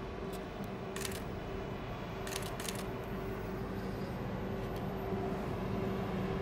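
A train's steady hum with a held tone, slowly growing louder as it approaches. There are a few short sharp clicks about a second in and again about two and a half seconds in.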